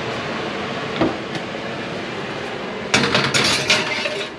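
An electric oven door is opened with a click about a second in. About 3 s in comes a burst of rattling and knocking from the metal oven rack and the glass baking dish on it. A steady hiss underlies it all.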